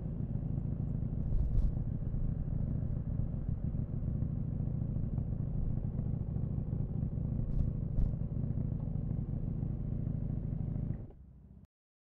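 KTM 790 Duke's parallel-twin engine running at low revs as the motorcycle rolls slowly, with a few short knocks, one early and two close together past the middle. The sound cuts off suddenly near the end.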